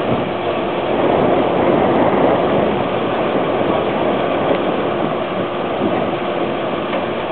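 A vehicle engine running steadily, with a faint steady hum over it.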